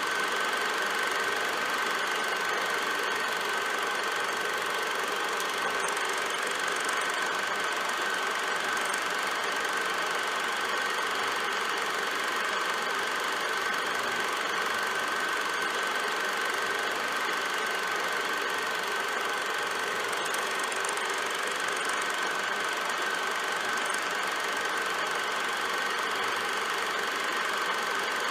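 Film projector running, a steady mechanical clatter with a constant high whine.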